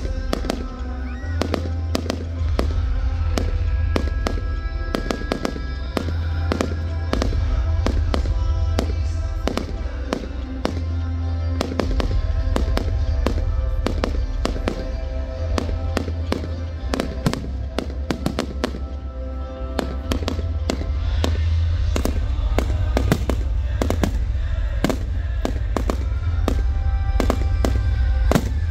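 Fireworks display: aerial shells bursting in rapid succession, a dense run of bangs and crackles, with music playing under them.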